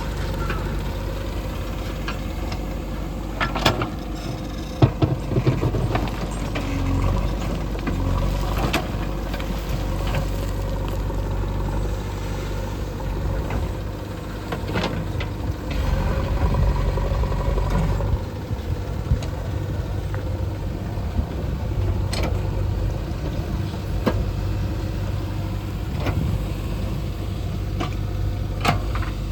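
Heavy diesel machinery engine running steadily, louder for a few seconds past the middle, with several sharp knocks and clanks.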